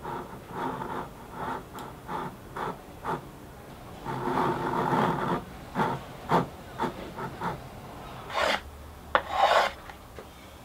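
Japanese pull saw cutting through a small piece of wood by hand, rasping strokes about two to three a second with one longer stroke about four seconds in.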